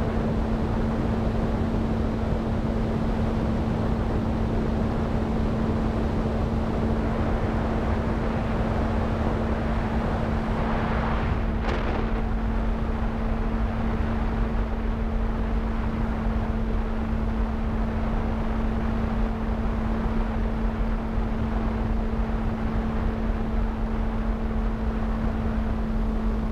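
Steady hum of the Skyhunter's electric pusher motor and propeller at cruise, heard through the onboard camera, under heavy wind rush on the microphone. A brief swell of rushing noise comes about eleven seconds in.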